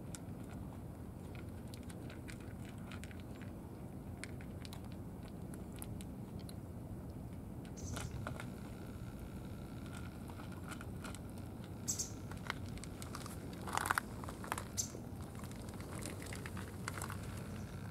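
Cats chewing and crunching cat food from plastic trays: scattered small clicks and crackles over a low steady background rumble, with a few louder clicks in the second half.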